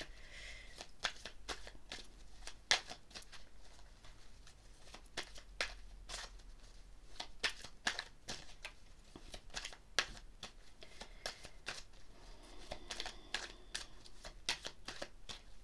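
A deck of tarot cards being shuffled and handled by hand: irregular soft snaps and clicks of the cards, some louder than others.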